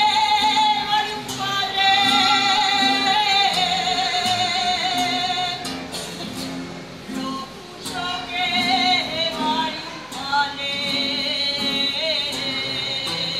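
A woman sings an Aragonese jota solo in long, held phrases with a wide vibrato, accompanied by strummed Spanish guitars. Her voice breaks off briefly about halfway through while the guitars play on, then comes back for another long phrase.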